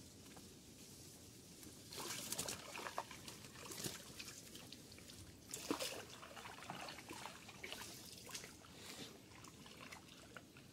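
Faint, irregular water splashing and trickling as a long pole is dipped into and pulled out of shallow water to push a small wooden boat along. It starts about two seconds in.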